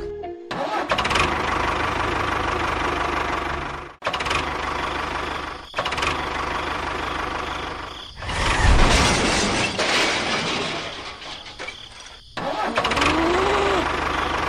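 A small engine running steadily, heard in several short stretches that break off and restart suddenly.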